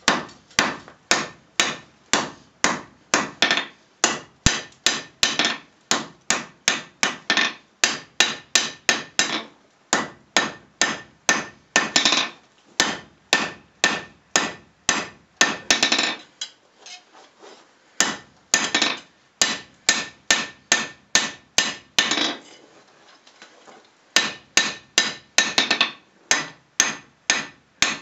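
Hand hammer striking a red-hot bar of 1084 steel on a steel block, drawing out the knife's tip, in a steady rhythm of about two blows a second. The blows stop briefly twice, about sixteen and twenty-two seconds in.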